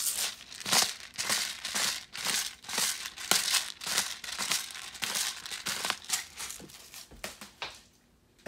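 Disposable black pepper grinder being twisted over food: a quick run of gritty crunching strokes, about three a second, as peppercorns are cracked. The grinding stops near the end.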